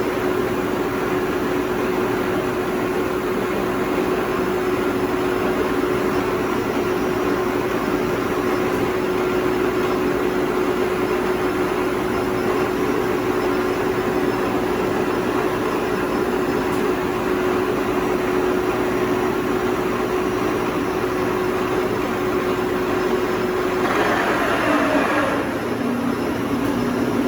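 Spindle of a Toshiba BTD-110.R16 CNC horizontal boring mill running at about 3,000 rpm, a steady machine whine with one held tone. About three seconds before the end the pitch falls and it settles on a lower steady tone.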